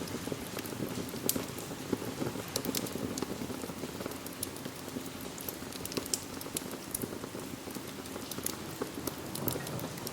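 Steady rain together with a crackling wood fire in a fireplace, with sharp crackles scattered irregularly through the rain.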